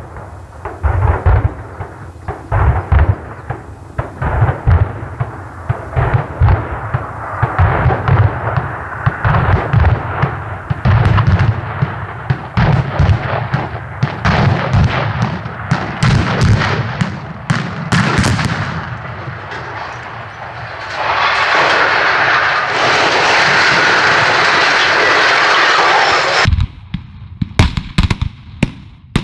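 Explosive charges felling steel radio towers fire in a long, rapid string of sharp cracks and deep thuds for the first eighteen seconds or so. A steady rushing noise follows for several seconds, and a few more sharp cracks ring out near the end.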